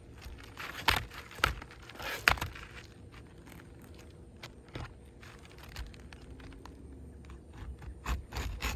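An asphalt shingle being cut down to width and handled: a few sharp scrapes and clicks in the first couple of seconds and another a little after the middle, with fainter ticks between.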